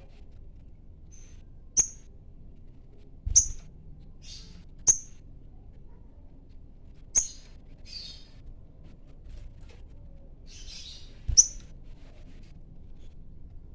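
Sogon bird in breeding condition calling to a rival: short, sharp, high chips spaced a second or more apart, with a few softer, rougher calls between them.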